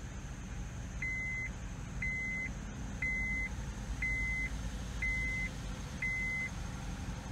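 A car's warning chime beeping six times, about once a second, each beep a short steady tone, over the low rumble of the vehicle.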